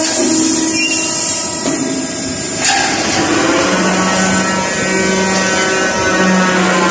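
Roll forming machine running steadily, shaping steel strip into rack upright sections, with a sharp metallic clank about two and a half seconds in and a low drone that comes and goes in the second half.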